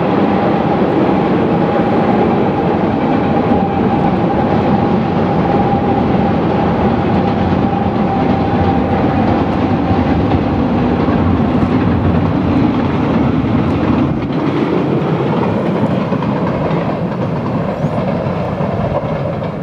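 Freight cars rolling over a steel trestle bridge: a steady rumble and clatter of wheels on rail, with a steady high tone that fades out about halfway through. The sound eases off slightly near the end as the last cars clear the bridge.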